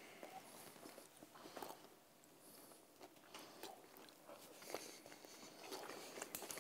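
Faint chewing of a salmon maki sushi roll, with a few scattered soft clicks.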